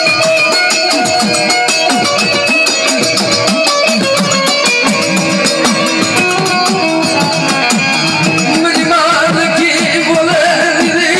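Gujarati devotional folk music: fast, steady percussion under held drone tones, with a melody line that rises and wanders near the end.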